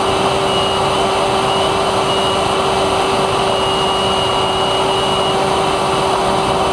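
Krossblade SkyProwler 2's electric motor and propeller running at high throttle in fast fixed-wing flight, heard onboard: a steady whine at one constant pitch over loud rushing wind noise.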